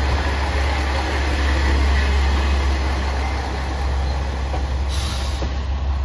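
JR Shikoku 1200 series diesel railcar running past at close range: a steady low engine drone under the rush of wheels on rail. A brief hiss comes about five seconds in.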